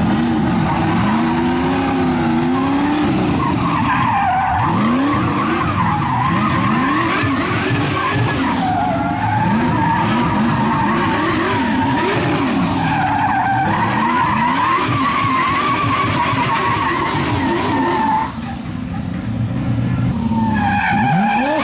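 Performance car engine revving up and down over and over while its tyres squeal almost without a break, the sound of a car sliding on the throttle. It eases off briefly about 18 seconds in, then the revs and squeal come back.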